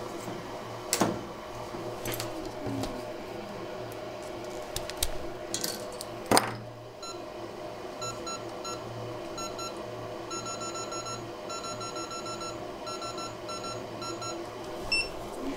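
A hot air rework station's control panel beeping in quick stop-start runs of short electronic beeps as its settings are pushed up. Before the beeps come a couple of sharp clicks of handling, all over a steady low hum.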